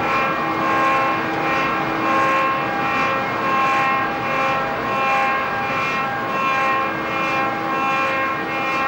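Wave-making plungers' machinery running: a steady mechanical whine of several held tones over a rushing noise, rising and falling in loudness about once a second.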